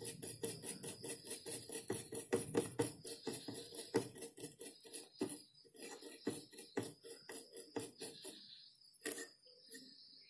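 Small brush scrubbing a circuit board's solder pads clean where a voltage regulator IC has been removed: quick rubbing strokes, several a second, thinning out near the end with a couple of last clicks.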